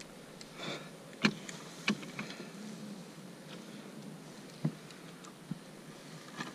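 A few scattered sharp knocks and clicks, the loudest two coming a little over a second in and about two seconds in, as fishing gear is handled and bumps against the kayak, over a faint steady hiss.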